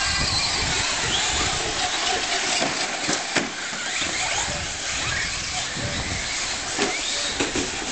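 A pack of electric Traxxas Slash 4x4 short-course RC trucks racing: a steady high hiss of motors and tyres on the carpet with short rising whines, and a few sharp knocks of trucks landing jumps or hitting barriers, about three seconds in and again near the end.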